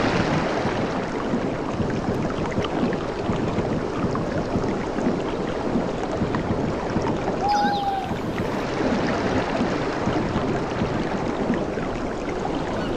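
Sea water washing and lapping steadily, a dense crackling wash of water. A single short whistle sounds about halfway through, and faint high chirps come in near the end.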